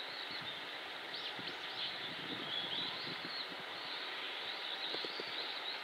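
Japanese pygmy woodpecker chiselling out its nest hole in a cherry trunk, faint irregular pecking taps on the wood, with small birds twittering high in the background.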